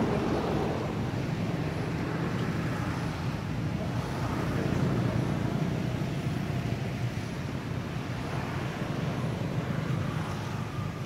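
Steady rumble of road traffic, with no sharp or sudden sounds.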